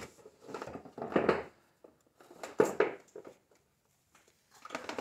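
A wire being pulled by hand through the gap behind a plastic inner fender liner: irregular bouts of rustling and scraping, with a sharp click about two and a half seconds in.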